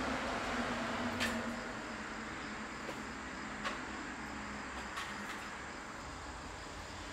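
Steady outdoor background noise with a low hum that fades out about two seconds in, and three or four light clicks spread through it.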